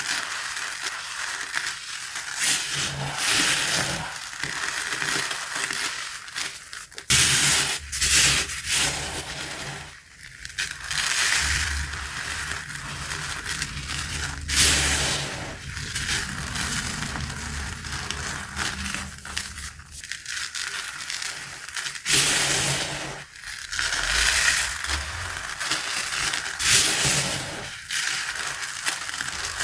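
Cornstarch crunchies being crushed: dry compacted cornstarch crunching in repeated squeezes, with several louder crunches and short pauses between.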